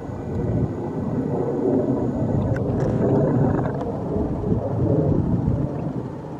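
Large swept-wing, multi-engine jet aircraft flying overhead: steady jet engine noise, mostly low-pitched, that grows louder after the first second and stays strong through the middle of the pass.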